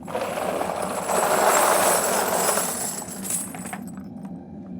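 A batch of small brass casings being poured out, a dense metallic clinking clatter that starts suddenly, swells in the middle and dies away after about four seconds.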